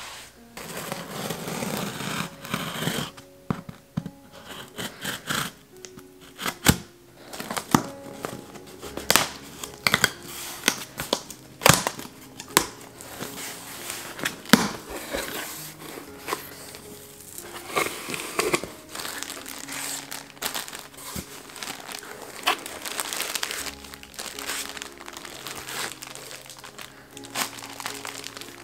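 Plastic and cardboard packaging crinkling and rustling as a shirt order is handled and packed, with many sharp clicks and taps, over background music.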